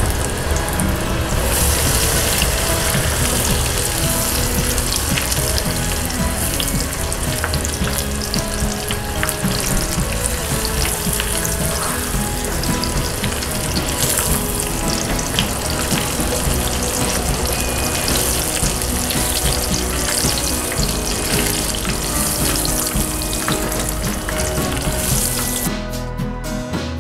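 Breaded chicken strips deep-frying in a pan of hot oil: a steady, dense crackling sizzle, with background music underneath. Near the end the frying stops suddenly, leaving only the music.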